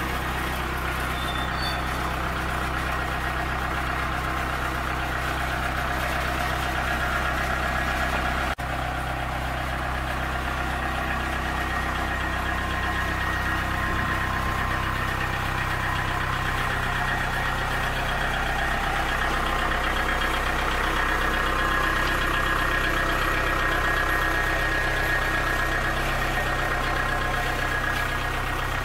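Engine of a 2006 Manitou TMT55 truck-mounted forklift idling steadily, with a momentary break about eight and a half seconds in.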